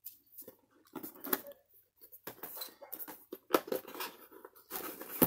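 Hands handling and turning a cardboard product box: irregular soft rubs, scrapes and taps of fingers on the box, with a few sharper clicks.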